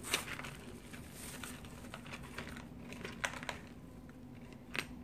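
Rustling and crinkling of a sheer organza drawstring pouch being untied and opened by hand, with a few sharp clicks and taps as a plastic eyeshadow compact is handled and lifted out.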